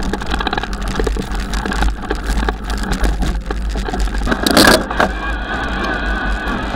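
Haibike Xduro FatSix fat-tyre e-mountain bike riding through fresh snow, heard from a camera mounted on the bike: a steady low rumble of wind on the microphone, with frequent small rattles and knocks from the bike and one louder jolt about four and a half seconds in.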